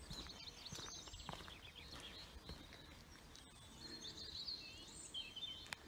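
Faint birdsong: small birds twittering and warbling in short high phrases, with a few soft footsteps in the first half.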